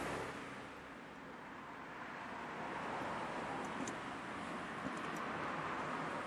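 Steady background hiss, with a few faint light metal ticks from a small pick working at a spring retainer on the carburettor body, about four and five seconds in.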